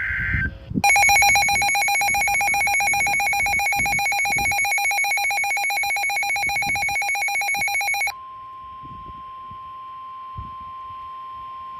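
NOAA Weather Radio alerting for a new warning. It opens with the tail of a screechy SAME data burst. Then a loud electronic alarm pulses rapidly for about seven seconds, and it gives way to the steady single-pitch 1050 Hz warning alarm tone.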